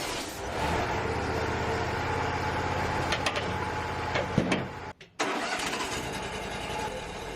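Wood-Mizer LT35 portable sawmill's engine running steadily, with a few sharp knocks about three to four seconds in. The sound drops out for a moment just after five seconds, then the engine noise carries on.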